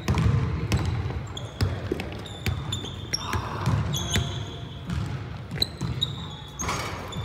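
Basketball being dribbled and bounced on a hardwood gym floor, a string of sharp thuds, with several short, high sneaker squeaks from players cutting on the court.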